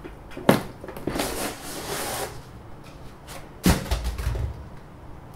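A block of packing foam being pulled out of a resin 3D printer's enclosure: a sharp knock, a scraping, squeaky rustle as the foam slides out, then a second knock with a low thud near the end as it is handled and set down.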